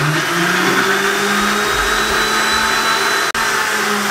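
Electric countertop blender motor running steadily at full speed, grinding a wet tamarind and jaggery chutney in its jar, with a momentary break a little over three seconds in.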